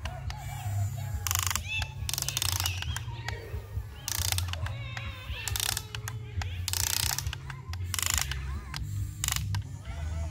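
Huina RC excavator's electric gear motors running, a steady low hum broken by about seven short grinding, ratcheting bursts as the arm and bucket move through sand.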